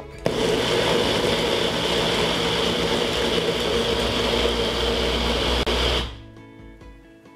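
Magic Bullet blender motor running hard as it grinds rolled oats, sugar, chia and sunflower seeds, a steady whir held for about six seconds with one momentary break shortly before it cuts off.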